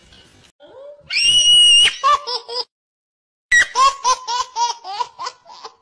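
A baby's voice: a loud, held, high-pitched squeal followed by short squeaks, then, after a short dead-silent gap, a fast run of giggling calls of about six a second.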